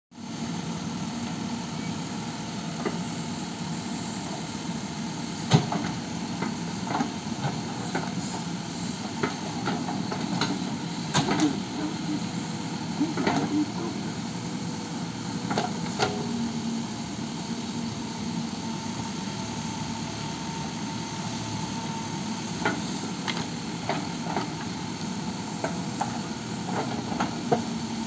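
Mahindra EarthMaster VX backhoe loader's diesel engine running steadily under hydraulic load while the backhoe digs, with scattered sharp knocks and clunks from the bucket and arm working the soil, the loudest about five seconds in.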